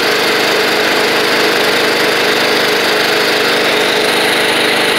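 Riding lawn mower's small engine running steadily at an even speed.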